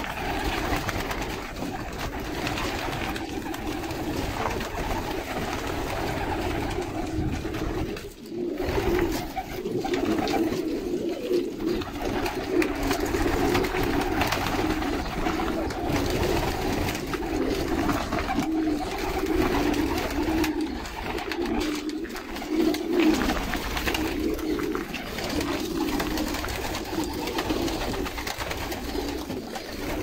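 A loft full of domestic pigeons cooing at once, many low coos overlapping without a break.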